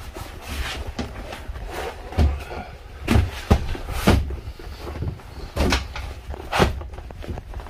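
A string of about six knocks and thumps as cushions and fittings are moved about in a small boat cabin, over a low rumble of handling noise.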